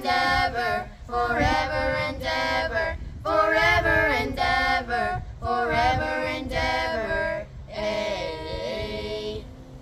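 A group of children singing together without accompaniment, in several short phrases with brief breaks between them, ending on a long held final note near the end.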